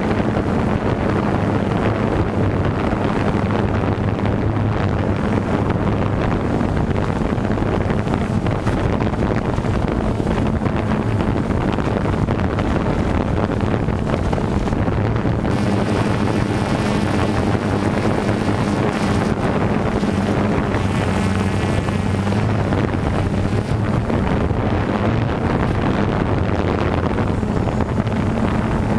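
DJI Phantom 2 quadcopter's electric motors and propellers buzzing steadily, heard through the GoPro carried on the drone, with wind rushing over its microphone.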